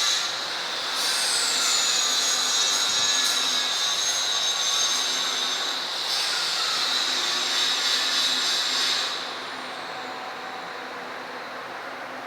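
CNC milling machine spindle running with a high, steady whine and hiss. About a second in, its pitch glides down and settles. Near the end the whine drops away, leaving a quieter steady hiss.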